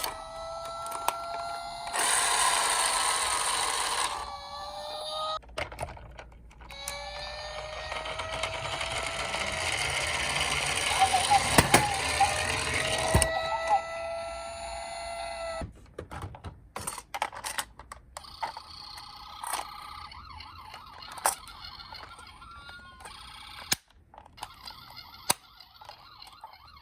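Toy ambulance and fire-engine minicars playing electronic siren sounds through small built-in speakers: slow wails rising and falling in pitch, with stretches of hiss over them. In the second half the siren changes to a faster, wobbling tone, broken by clicks and taps as the toys are handled.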